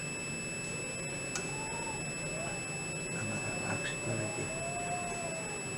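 Multimeter continuity buzzer sounding a steady, unbroken high beep across the Samwon SD-72M controller's output contacts: the relay contacts are closed, switched by the input signal against the set point.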